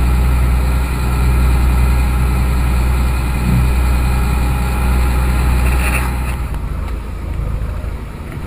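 Dive boat's engine running steadily while the boat is under way, a deep even drone. About six seconds in it gives way to a quieter, rougher rumble.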